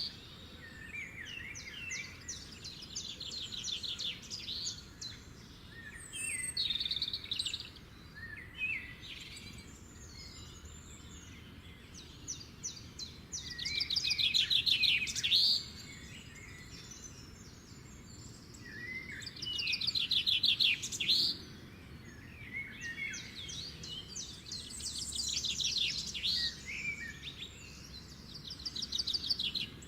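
Several birds chirping and trilling in rapid, overlapping bursts, loudest about halfway through and again about two-thirds of the way in.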